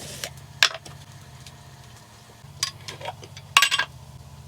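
A few sharp clicks and taps of a knife and jar while a sandwich is made, scattered through the seconds with a small cluster near the end, over a steady low hum.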